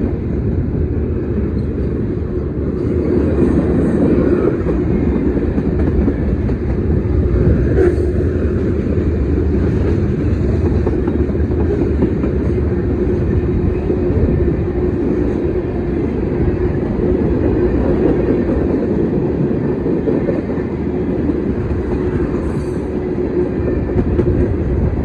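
CSX freight train cars rolling past close by: a steady, loud rumble of wheels on the rails.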